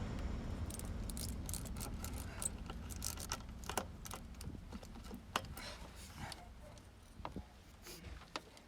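Scattered light clicks and rattles of hand tools and pipe fittings being handled while an intake pipe and its hose clamps are worked into place, over a low hum that fades out near the end.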